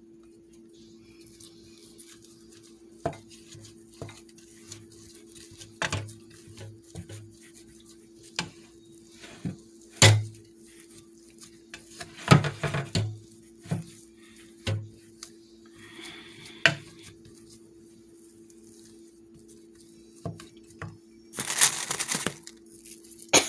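Wooden spoon knocking and scraping against a metal pot while stirring thick mashed potatoes, in irregular knocks with a longer scraping stretch near the end. A steady low hum runs underneath.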